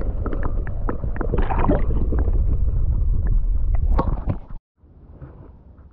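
Muffled underwater water noise from a submerged action camera: a loud low rumble and gurgling with many small clicks and splashes. It cuts off suddenly about four and a half seconds in as the camera leaves the water, leaving only a faint hiss.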